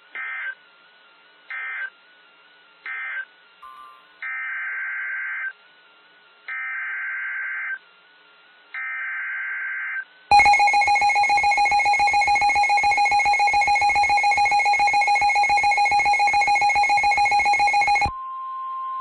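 Emergency Alert System SAME data bursts: three short warbling end-of-message bursts, then three longer header bursts that open the next alert. About ten seconds in comes the two-tone EAS attention signal, held steady for about eight seconds and then cut off sharply.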